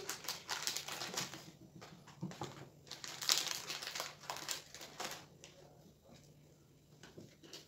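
Plastic biscuit packet crinkling and crackling as it is cut open with scissors and a biscuit is pulled out, a run of sharp rustles that fades after about five seconds.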